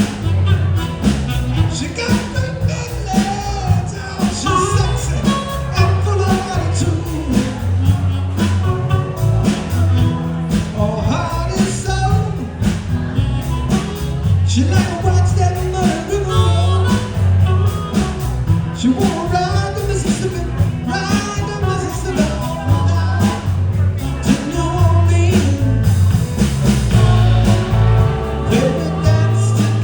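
Live band playing a rock song, with a steady drum beat, a heavy bass line and a lead melody over it.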